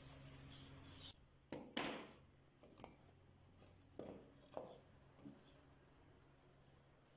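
A few light knocks and clatters of small wooden pieces being picked up, handled and set down on a workbench, the loudest a little under two seconds in, over a faint steady hum.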